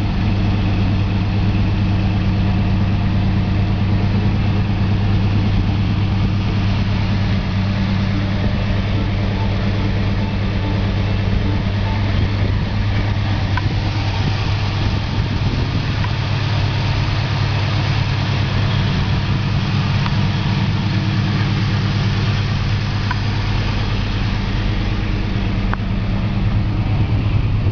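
1979 Pontiac Trans Am's 403 cubic-inch V8 running at a steady idle through its dual exhaust, a low, even engine note.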